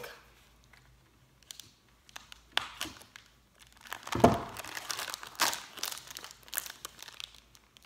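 Plastic candy wrapper crinkling and rustling as it is handled and torn open by hand. The first second or so is quiet, then irregular crackles set in, loudest about four seconds in.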